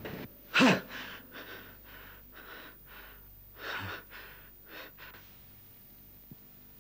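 A man's short, loud vocal cry, then heavy gasping breaths, about two a second, with a louder gasp near the end before they die away.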